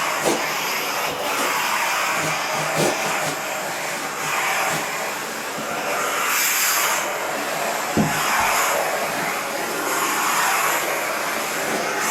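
Karcher SC3 steam cleaner's floor nozzle hissing steadily as it is pushed across the floor, cleaning through a microfiber pad. A few light knocks, the loudest about eight seconds in.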